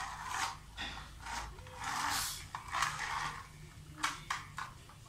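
A small plastic toy truck pushed and scraped across a tiled floor in short strokes, its wheels and body rubbing on the tile, with a few sharp clicks about four seconds in.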